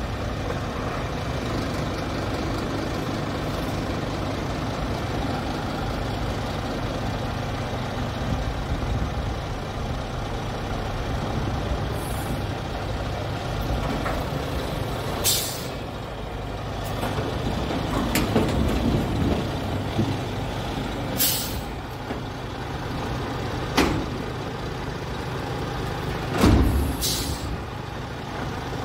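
Scania P360 truck's diesel engine running steadily, driving the hydraulic tipper as the dump body is raised. Short sharp air hisses come about four times, and there are two knocks in the second half.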